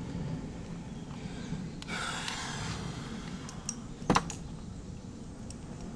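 Quiet handling of small metal and plastic fuel-pump parts, with a soft rustle about two seconds in and one sharp click just after four seconds.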